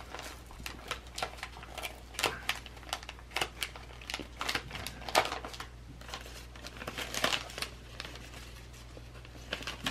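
A folded paper letter rustling and crinkling as it is handled and unfolded, in short irregular crackles over a faint steady low hum.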